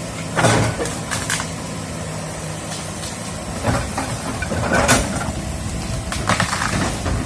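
Excavator's diesel engine running steadily, with about five short bursts of rushing noise over it.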